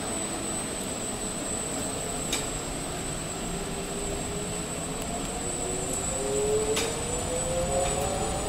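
Electric minibus motor whining as the bus pulls away, the whine rising slowly in pitch from about halfway through as it picks up speed, over steady street noise.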